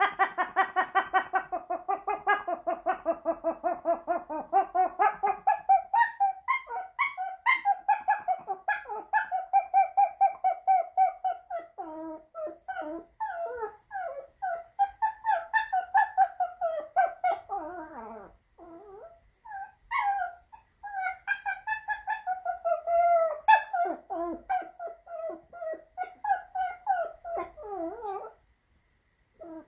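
German Spitz dog giving a monkey-like howl: a long chattering run of short yipping whimpers at about five a second, with a short break about eighteen seconds in and again near the end.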